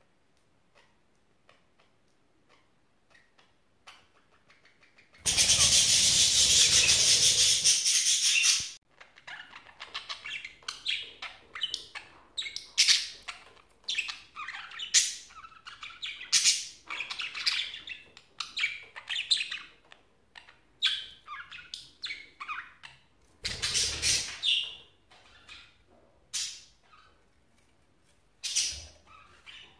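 Budgerigars chirping and chattering in many short, high calls, after a few quiet seconds at the start. About five seconds in, a loud rushing noise lasts some three seconds, and a shorter one comes about two-thirds of the way through.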